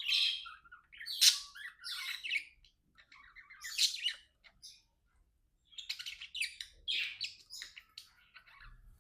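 Budgerigars chattering and squawking in short scratchy bursts, with a pause of about a second midway before the chatter picks up again.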